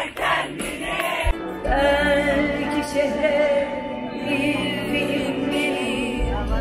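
Live pop concert heard from within the crowd over a festival PA: crowd noise for the first second or so, then the band comes in with long held sung notes over a steady bass.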